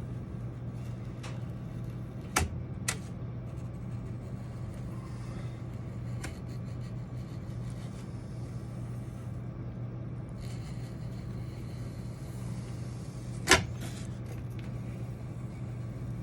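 Steady low hum with a few light clicks and taps from hands working on foam and tools, the loudest knock about thirteen seconds in.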